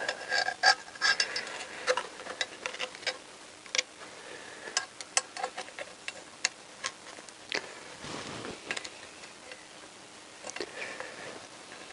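Irregular light metallic clicks and taps from a small hook tool working against a motorcycle's aluminium cylinder head, as a rubber valve stem seal is worked onto a valve guide.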